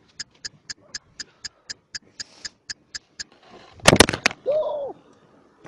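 Running footsteps slapping on concrete, about four a second, picked up by a body-worn action camera, then a heavy crash about four seconds in as the runner falls onto rocky ground, followed by a brief cry.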